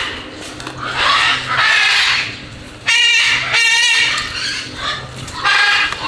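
Parrots in the aviaries squawking: a series of loud, harsh calls, several with a wavering pitch.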